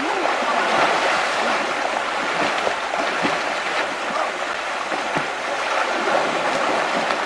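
Fast river current rushing steadily, with small splashes throughout.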